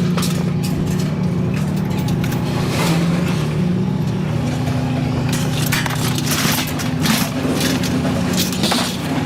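An engine running steadily under repeated clanks, knocks and rattles of scrap metal being pulled and thrown.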